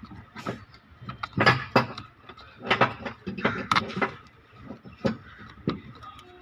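Irregular knocks and clinks of metal parts and tools being handled, about a dozen sharp hits with uneven gaps.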